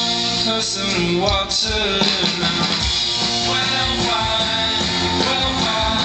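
Live band music through the PA, heard from the audience: electric guitars and bass playing under a pitched melody line.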